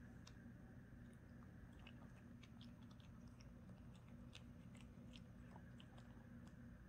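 A kitten chewing dry kibble from a steel bowl: faint, irregular crisp crunches, thickest in the middle, over a steady low hum.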